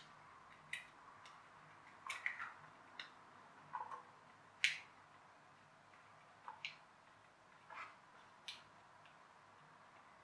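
Small black plastic parts of a toy RC car's chassis and receiver box handled and worked apart by hand: scattered, irregular light clicks and taps, about a dozen of them.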